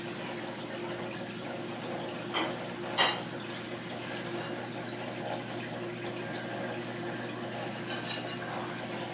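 Aquarium filtration running: water trickling and splashing steadily over a low steady hum. A sharp click comes about three seconds in.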